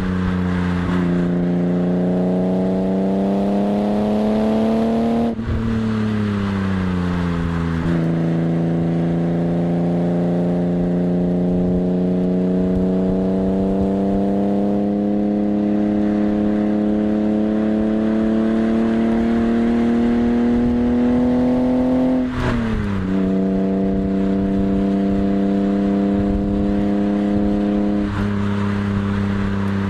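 BMW E36 M3's straight-six engine being driven hard on a race track, heard from outside the car: the revs climb through long pulls and drop sharply twice, then hold steady near the end. A steady rush of wind and tyre noise runs underneath.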